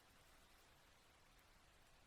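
Near silence: very faint, steady hiss of slow rain, with a few faint drip ticks.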